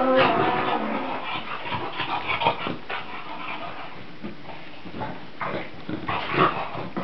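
Shar-pei dogs play-fighting, making short, irregular bursts of dog sounds.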